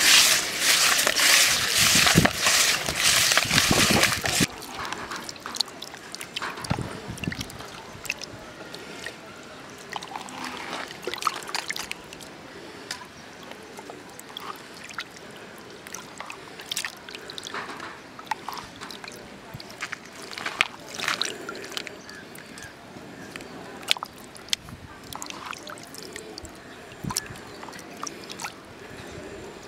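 Hands washing small fish in a steel bowl of water: sloshing and splashing, with small clicks as the fish and fingers knock the bowl. A louder rushing noise fills the first four seconds or so and cuts off suddenly.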